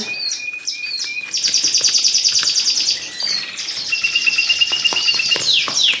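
Caged canaries and small finches singing together: a fast high trill, then a held whistled note, then a run of quick falling notes near the end. Faint scrapes and taps of a metal fork stirring moist soft food in a plastic tub sound underneath.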